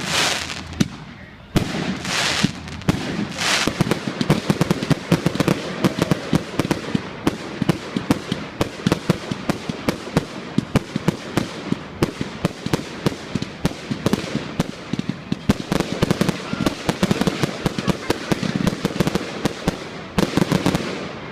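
Fireworks going off: a few loud bangs in the first few seconds, then a long run of dense, rapid crackling pops.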